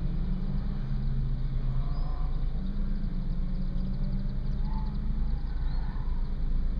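Mazda MX-5's engine idling steadily, heard from inside the cabin while the car stands still. A few faint bird chirps come through over it.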